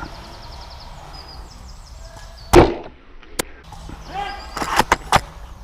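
A Novritsch SSG24 airsoft sniper rifle fires one shot with a sharp thump about two and a half seconds in, followed a moment later by a single sharp click. Near the end come a few more clicks with faint voice-like sound among them.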